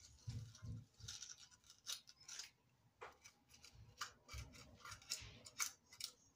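A knife cutting and scraping the core out of a beefsteak tomato: faint, irregular rasping strokes mixed with a few soft knocks.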